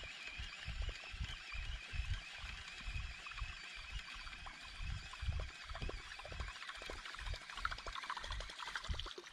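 Water lapping and trickling against a fishing kayak, with irregular low thumps throughout.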